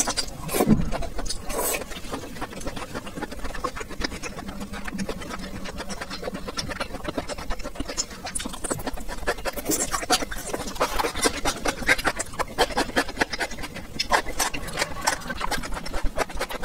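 Close-miked eating sounds: a slurp of rice noodles near the start, then continuous wet chewing with many small crunchy clicks from a mouthful of tripe, green pepper and noodles.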